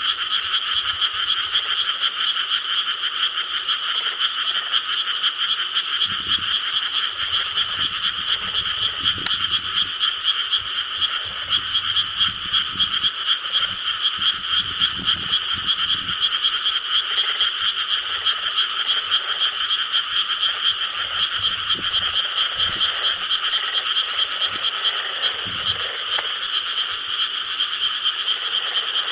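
A dense chorus of many frogs calling together in rice paddies, a continuous rapid pulsing croak that never breaks.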